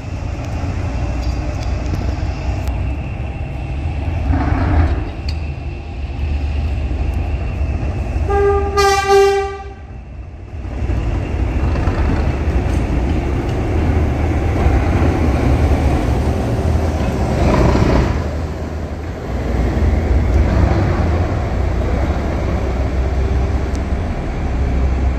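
Diesel locomotive running with a steady low engine sound, its horn sounding one note for about a second, roughly eight and a half seconds in.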